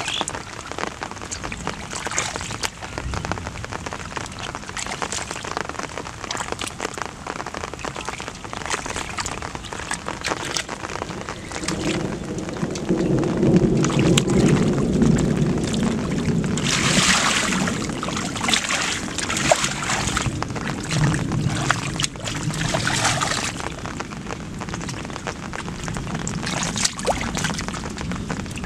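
Hands splashing, slapping and squelching in shallow muddy rice-field water while groping for fish: a dense run of small wet splashes and slaps. It grows louder and deeper for a few seconds in the middle, with sharper splashy bursts soon after.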